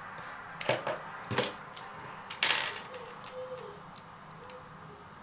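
Sharp clicks and scrapes of a small metal pry tool working at the ribbon-cable connectors on a smartphone's circuit board, unplugging them: a few clicks in the first three seconds, the last and longest about halfway through, then a couple of faint ticks.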